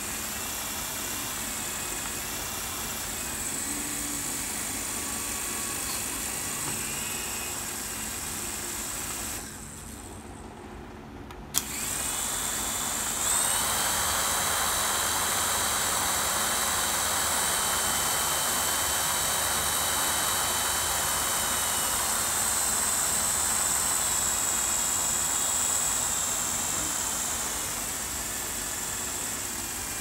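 Small 3.7 V electric motors whining and plastic rotor blades whirring on a homemade remote-control helicopter run up on the bench. About a third of the way in the whine drops away for two seconds. A sharp click follows, then the motors spin up again, higher and louder, and hold steady until they ease off slightly near the end.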